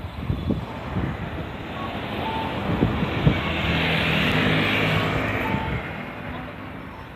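A vehicle passes close by. Its engine and running noise swell to a peak about four to five seconds in, then fade away, with a few knocks in the first half.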